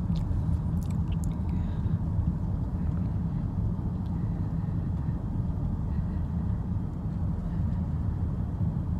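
Steady low rumble of a car, heard from inside the cabin, with a few faint clicks in the first second or so.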